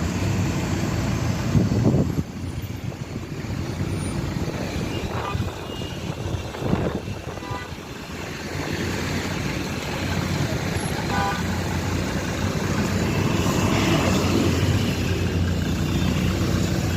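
Road traffic: vehicle engines running and cars passing, one swelling up about two-thirds of the way through, with a few short high beeps in the middle.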